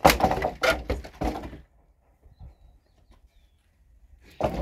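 A few loud knocks and thuds in quick succession, then quiet, then one more thud near the end.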